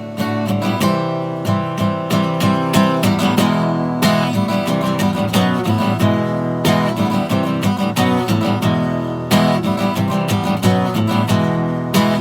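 Acoustic guitar strummed steadily in rhythmic chords, an instrumental break between sung verses.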